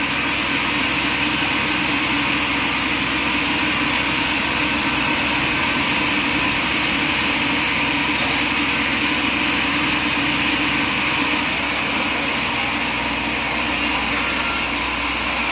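Sawmill running steadily: a loud, even machine noise from its engine and blade, with no pauses or changes in pitch.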